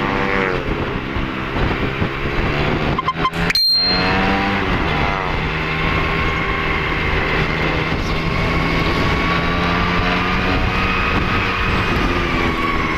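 Vehicle engine running on the move, its pitch rising and falling with speed changes, briefly interrupted about three and a half seconds in before it runs on steadily.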